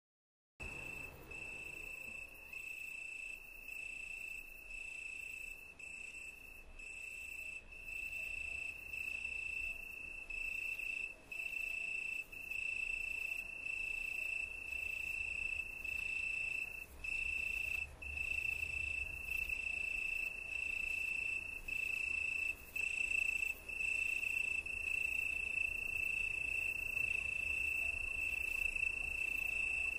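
A cricket trilling steadily at one high pitch, the song broken by brief pauses every second or so, with a faint low rumble underneath; it starts about half a second in.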